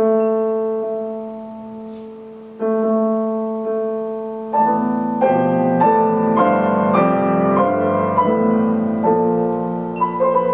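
Grand piano playing slow, sustained chords: one struck and left to ring and fade, a second about two and a half seconds in, then a louder passage of denser chords from about four and a half seconds in, settling on a held chord near the end.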